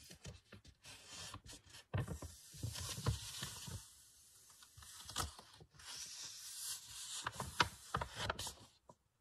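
A sheet of paint-printed paper rustling and crackling as it is picked up and handled. It gives irregular crinkles, swishes and small clicks, with a brief pause about halfway through.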